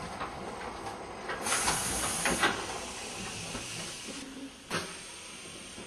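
Revolver stretch-wrapping machine running, with scattered mechanical knocks. A sharp hiss cuts in about a second and a half in, then fades away by about four seconds in. A single louder knock comes near the end.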